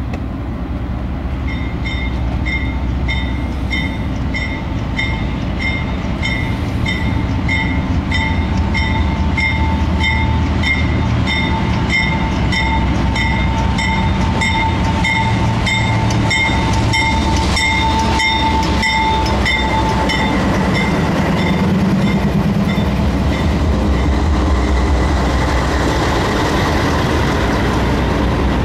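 Norfolk Southern diesel-electric locomotives passing slowly with a deep engine rumble, the lead unit's bell ringing about twice a second and a thin steady whine in the middle. Once the locomotives are by, the bell stops and the train's passenger cars roll past with wheel clatter.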